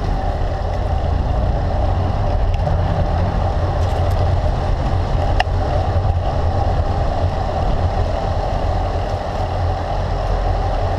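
Steady wind rumble on the microphone of a handlebar-mounted camera on a road bike rolling along a paved street, with a single short click about five seconds in.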